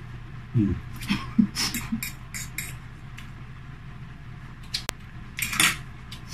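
Eating at the table: forks and spoons clicking against ceramic plates and bowls, with mouth sounds of noodles being eaten. There are several quick clinks in the first few seconds, a single sharp click around five seconds in, and a short slurp just after it.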